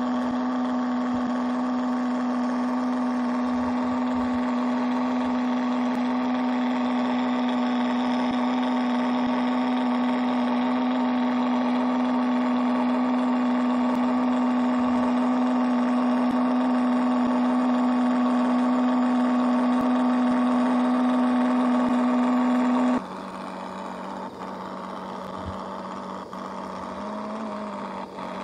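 Steady motor hum at one unchanging pitch with a stack of overtones. It cuts off suddenly about 23 seconds in, leaving a quieter background with a faint tone that rises slightly near the end.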